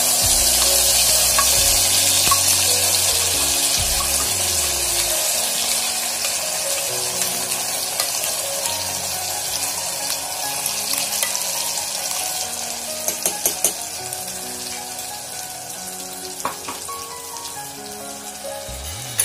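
Ground peanut and spice paste sizzling loudly in hot oil in a pressure cooker, just after it is tipped in. The sizzle slowly dies down, and there are a few clicks in the second half.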